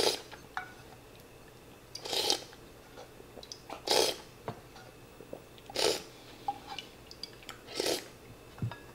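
Slurping sips of ramen broth from a wooden spoon, five short slurps about two seconds apart, with a few faint clicks of the spoon between them.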